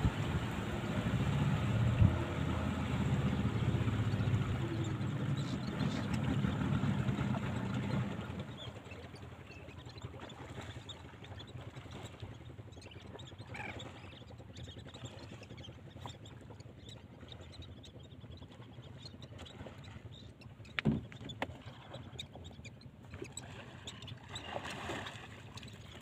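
Small fishing boat's motor running steadily, then dropping away about eight seconds in. After that it is quieter, with a single sharp knock later on and faint calls from the seabirds circling ahead.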